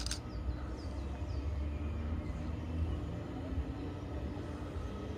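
Low, steady vehicle rumble, with short high falling chirps repeated over it near the start.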